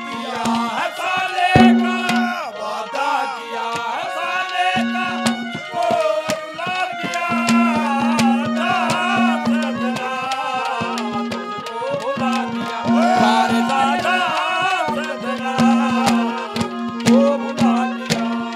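Haryanvi ragni ensemble playing an instrumental interlude with no singing: a dholak drums steadily under a wavering, bending melody line, over a held low note that drops out and comes back.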